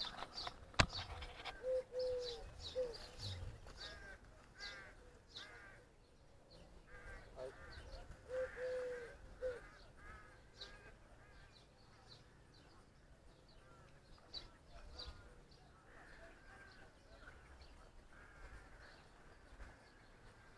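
Birds calling: repeated short crow-like caws, high chirps, and twice a low three-note cooing like a dove's. A single sharp click comes about a second in.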